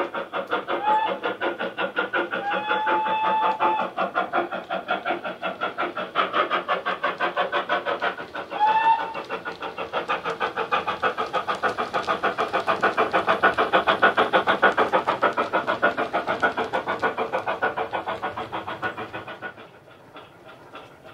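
Digital steam sound from a Loksound 5 decoder in a Hornby OO gauge 'Hogwarts Castle' model locomotive, a GWR Hall-class 4-6-0 sound project played through the model's speaker: fast, even exhaust chuffs as it runs. A short whistle sounds about a second in, a longer whistle at about three seconds, and another short whistle near nine seconds. The chuffing fades out near the end as the model runs away.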